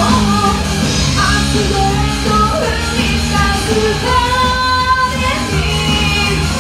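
A woman singing live into a microphone over loud backing music played through a club PA.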